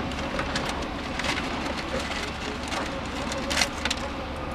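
Wiring and plastic dash parts rustling and clicking as a cable is handled and tucked behind a car dashboard: irregular small crackles and ticks, one sharper clatter about three and a half seconds in, over a steady background hiss.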